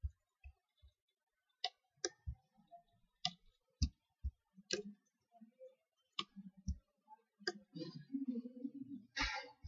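Computer mouse clicking, about a dozen separate clicks and light knocks at uneven intervals.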